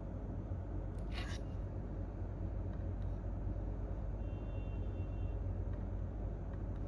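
Steady low rumble of office room tone, with a brief scratchy sound about a second in; no typing.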